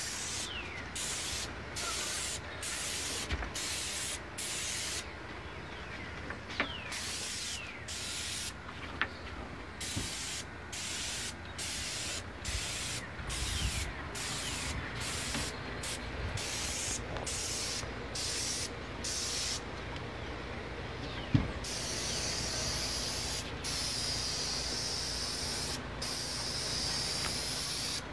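Airless spray gun spraying solid-body latex stain onto deck spindles in many short hissing bursts as the trigger is pulled and released for each spindle, then in longer unbroken sprays near the end. A sharp click about three quarters of the way through is the loudest moment.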